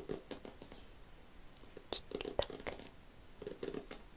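A woman speaking softly, half-whispered, close to the microphone, with crisp mouth clicks between the words.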